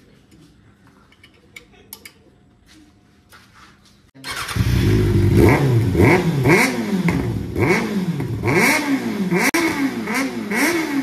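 Faint clinks of hand tools at the silencer, then about four seconds in a Kawasaki ZX-6R's inline-four starts and is revved again and again, rising and falling in pitch about once a second. It runs through a decat pipe and an aftermarket slip-on silencer, with the dB killer taken out.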